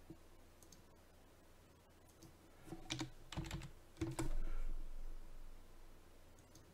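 A few computer keyboard keystrokes, clustered about three to four and a half seconds in, as a dimension value is typed, over a low steady background hum.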